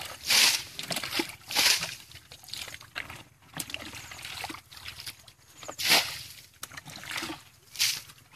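Muddy water being bailed out of a shallow ditch with a plastic bucket: repeated scoops and splashes as each bucketful is flung onto the bank, every second or two, the loudest about six seconds in.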